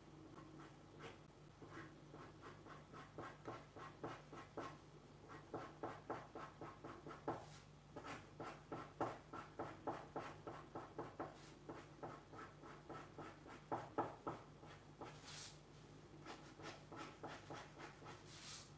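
Black marker pen scratching over paper in quick short strokes, several a second, busiest in the middle, as dark areas of an ink drawing are filled in. A faint steady low hum sits underneath.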